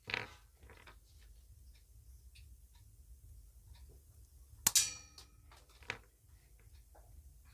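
Sharp clicks and snaps of hand tools cutting a fibre panel, with one louder metallic clang about five seconds in that rings briefly.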